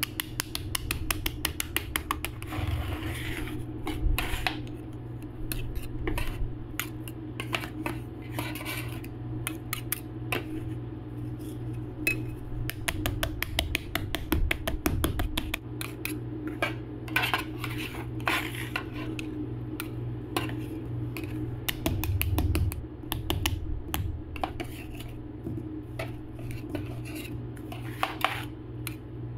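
Two metal spatulas chopping, tapping and scraping frozen ice cream on a steel cold plate and against a square metal mould. They make a quick, irregular run of sharp metallic clicks and scrapes over a steady low hum.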